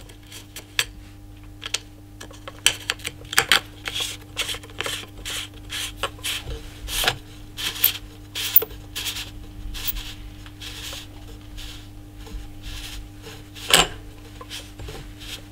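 Irregular clicks, light knocks and short scrapes of small parts being handled: the baffles, retaining spring and barrel shroud of a Benjamin Fortitude PCP air rifle. One louder click comes near the end, over a steady low hum.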